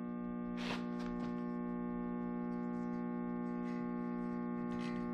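Steady electrical hum of an idling ESAB 251 MIG welder between weld beads, with a few faint ticks.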